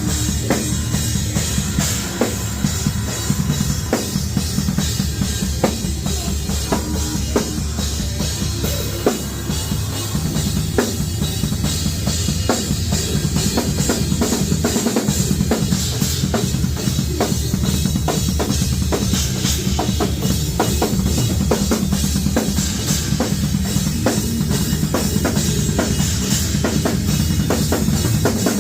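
Full drum kit played live and heard close up, with heavy kick drum, snare hits and cymbals in fast metalcore patterns, over the steady low rumble of the band's amplified instruments. From about halfway the hits turn denser and more even.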